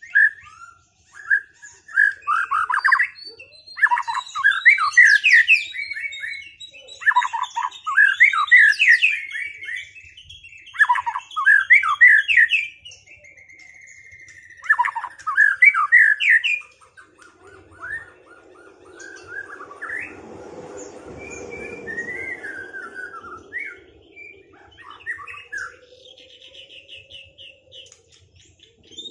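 White-rumped shamas (murai batu) singing against each other in a duel: loud, rapid phrases of sweeping chirps and whistles, several seconds each with short gaps between. After about 17 seconds the song turns softer and sparser, over a faint low hum.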